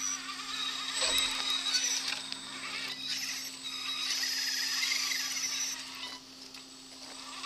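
High electric-motor and gear whine of a radio-controlled rock crawler working over rocks, coming in spurts and rising and falling with the throttle over a steady low hum. It dies down about six seconds in.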